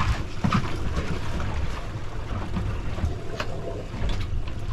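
Wind buffeting the microphone over the steady low rumble of a boat on the open sea, with a few short knocks.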